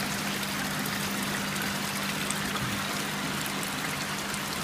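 Steady rush and trickle of water flowing into an aquaculture fish tank, over a steady low hum.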